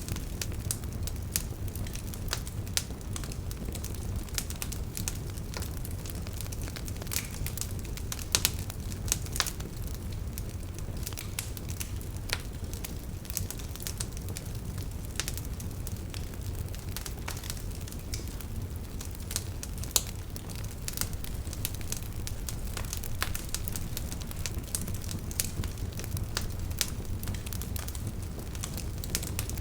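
Wood fire burning in a fireplace: a steady low rumble of flames with constant irregular crackling and occasional louder pops.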